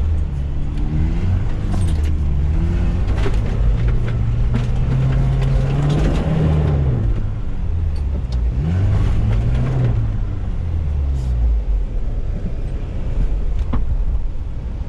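Off-road 4x4's engine heard from inside the cab, revving up and easing off several times as it crawls over muddy ruts and slopes, with knocks and rattles from the body and suspension. The engine eases down near the end.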